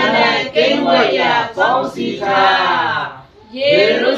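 A small mixed group of men and women singing a Burmese hymn together, unaccompanied, with a short pause between phrases about three seconds in.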